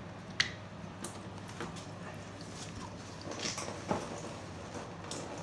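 A few light clicks and knocks of hand work at the ATV's coolant hose and drain pan, the sharpest about half a second in and a small cluster past the middle, over a steady low hum.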